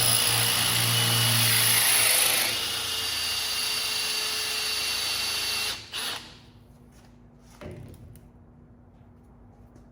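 Electric drill running and boring a hole into a billiard ball for about six seconds, loudest for the first two and a half seconds and then steady until it stops. A single short knock comes about a second and a half later.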